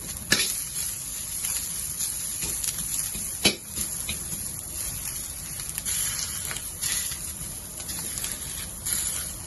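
Soaked pickled vegetable dry-frying in a pan without oil, a steady crackling sizzle as its moisture cooks off. Two sharp knocks stand out, one just after the start and one about three and a half seconds in.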